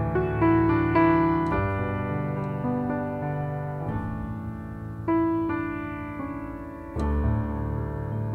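Slow solo piano music: chords struck and left to ring and fade, with a new chord about five seconds in and another near the end.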